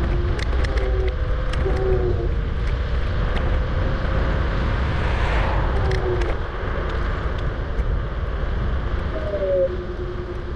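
Riding noise from a Kugoo G-Booster electric scooter at double speed: a steady low rumble of wind on the microphone and road noise, with scattered clicks and short whining tones. A hissing rush swells and fades about halfway through.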